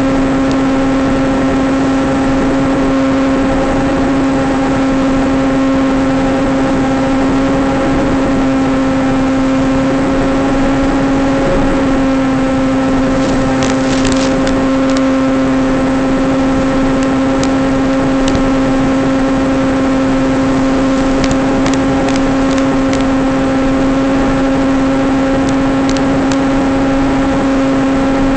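Electric motor and propeller of a small FPV flying wing running at a steady throttle: a constant drone that holds one pitch, with a few brief crackles about halfway through and again near the end.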